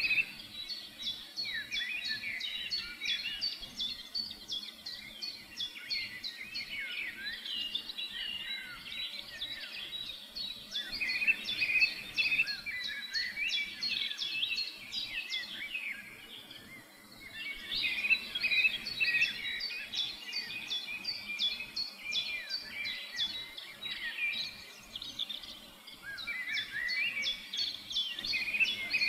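Chorus of many small birds chirping and singing, with rapid repeated high calls over warbling phrases. There is a short lull just past halfway.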